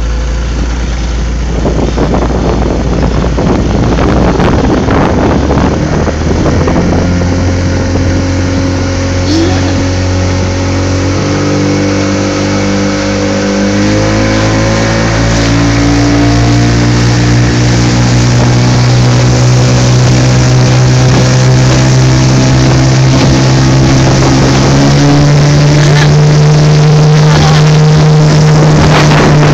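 Outboard motor on a small runabout speeding up under the load of a towed inflatable tube, its pitch rising in several steps. Water rushing and wind noise run underneath.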